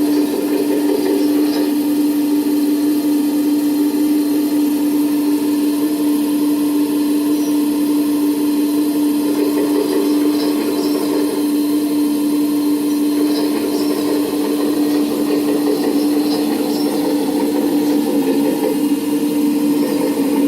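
A Servonaut SMB sound module plays a simulated diesel excavator engine and track sound through a speaker on a 1/14-scale RC Komatsu PC490 excavator as the model is driven. Under it runs a steady whine, likely from the model's hydraulic pump. Faint clicks and rattles come in here and there.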